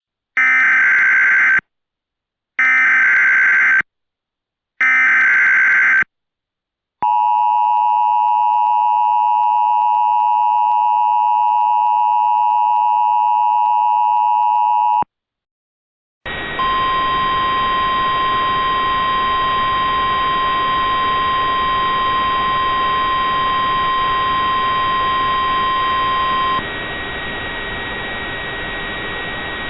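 Emergency Alert System tones: three short warbling bursts of SAME header data, then the steady two-tone attention signal held for about eight seconds. After a brief gap comes a hiss of static with a steady high tone over it, which stops near the end while quieter static continues.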